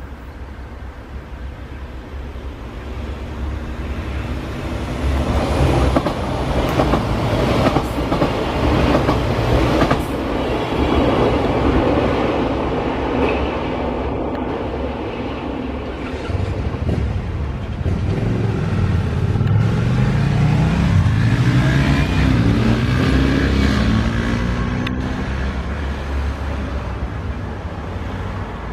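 Yellow diesel multiple unit passing close by, engine rumbling and wheels clattering. The sound builds over the first few seconds and the engine note rises in pitch in the second half before fading out.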